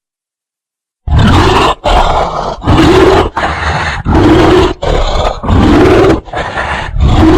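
Cartoon bear roar sound effect from the Hanna-Barbera library: after a second of silence, a loud, rapid string of short growling roars, each under a second and rising then falling in pitch.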